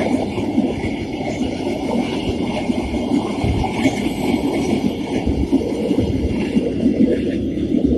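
Train passing, its wagons rolling over the rails with a loud, steady noise.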